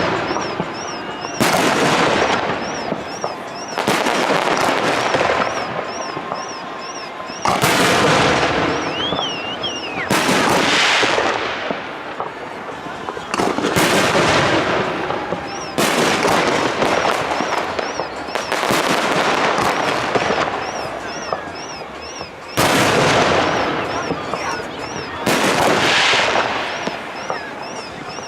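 Aerial fireworks shells bursting one after another, about every two to four seconds, each sharp bang trailing off in a long crackle.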